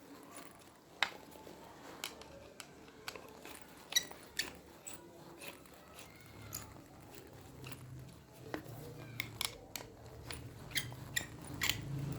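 Scattered sharp clicks and light metallic taps of small parts being handled as a motorcycle starter motor is put back together.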